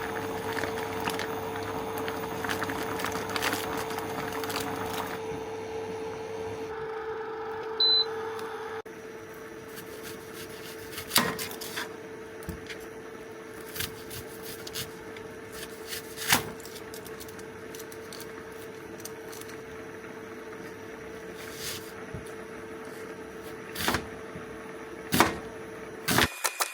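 Steady appliance hum with a short high electronic beep about eight seconds in, a few sharp knocks spaced several seconds apart, and a quick run of clicks at the end.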